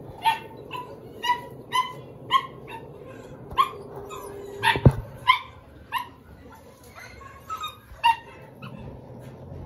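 A dog barking repeatedly, about two barks a second, with a single sharp knock about halfway through.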